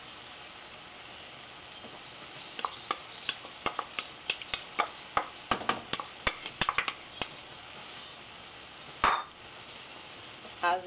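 Wooden spoon scraping and tapping against a bowl as tomato sauce is emptied into a pot of cooking ground beef: a quick, irregular run of sharp clicks, then one louder knock near the end, over a steady hiss from the pot on the stove.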